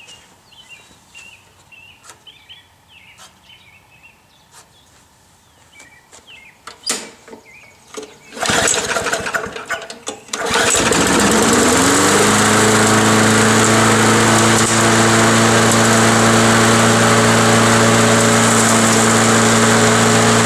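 Briggs & Stratton Classic single-cylinder push-mower engine pull-started after a carburetor repair: cranked by the starter cord about eight seconds in, it catches about two seconds later, rises in pitch as it comes up to speed, then runs steadily. The steady running shows the repaired carburetor is working again.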